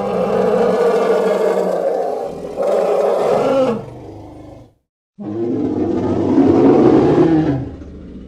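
Two long roars from a sound-effect recording. The first lasts about four seconds with a brief dip partway through. After a short silence the second starts about five seconds in and fades out near the end.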